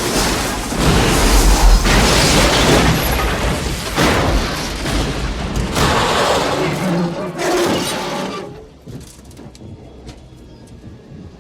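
Film destruction sound effect: a run of heavy booming crashes with deep rumble and debris noise. It dies away about eight seconds in, leaving faint scattered clatter.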